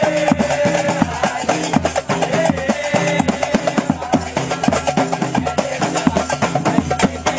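Daqqa Marrakchia percussion ensemble: frame drums, a strapped drum and hand-held metal clappers beaten together in a fast, dense rhythm. A voice holds a chanted note over the drums in the first second and again about two and a half seconds in.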